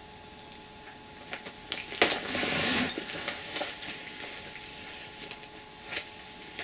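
Clear vinyl project bag and plastic chart packet rustling and crinkling as they are handled and put down, with a few small clicks and knocks. The loudest crinkle comes about two seconds in and lasts about a second.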